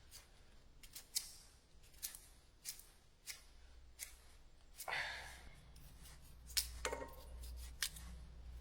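Kitchen knife cutting potato into chunks, giving separate sharp chops about every half second to second, with one longer scraping stroke about halfway through.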